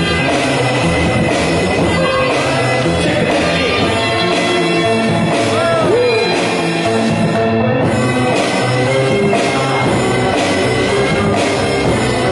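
Loud music with drums and a steady beat.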